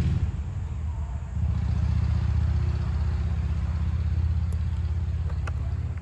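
A loud, low rumble that eases for about a second near the start and then holds steady.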